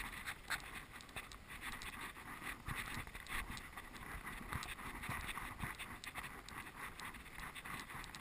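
Wind blowing across a walking camera's microphone as a steady hiss, with short, irregular crunches and knocks of footsteps on sand.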